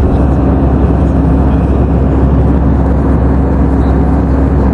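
Steady low drone of an airliner's jet engines and cabin air heard from inside the cabin, with a constant hum running under it.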